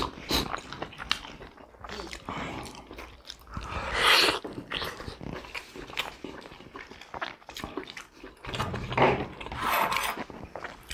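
Close-up eating of juicy steamed pork momos: wet chewing and biting with lip smacks, and a few louder slurps spread through.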